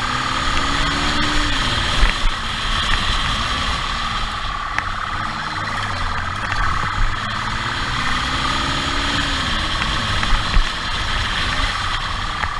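Motorcycle engine heard from the rider's own bike during a high-speed pursuit, revving up and down as it accelerates and slows, over steady road and wind noise. A few short knocks come about two seconds in and again near ten seconds.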